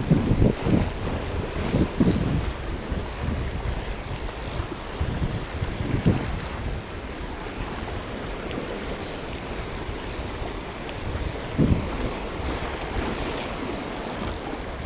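A spinning reel's mechanism ticking under load as a large sea bass fights on the line, with bumps of wind on the microphone in the first couple of seconds.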